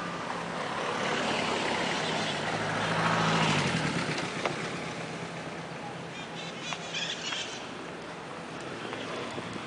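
Street traffic: a car drives past close by, loudest about three and a half seconds in, its engine note dropping as it goes past, over the steady noise of other cars.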